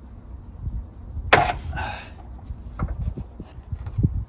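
Metal car parts being handled: a sharp knock about a second in, then lighter knocks and clunks as the rear bumper reinforcement bar and exhaust muffler are moved and set down.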